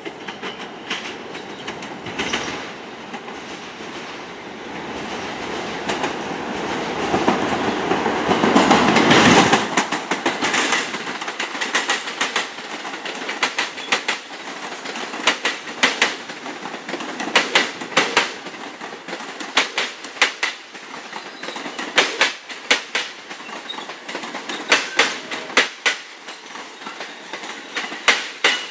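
New York City subway Q train approaching and passing close by. Its running rumble builds to a peak about nine seconds in, then the wheels clack steadily over the rail joints, often in pairs, as the cars roll past.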